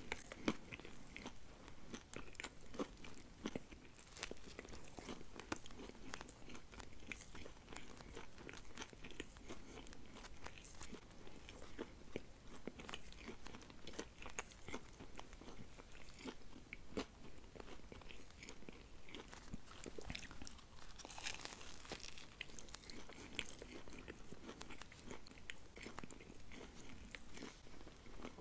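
A person chewing a bite of McDonald's burger: a steady run of small crunching and chewing clicks.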